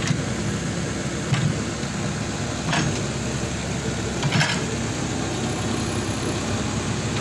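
Excavator's diesel engine running steadily, with three short sharp knocks about a second and a half apart partway through.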